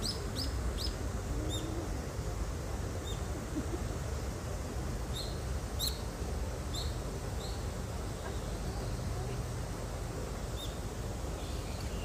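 Small birds chirping in short, high calls, a cluster near the start and more around the middle, over a steady low outdoor rumble.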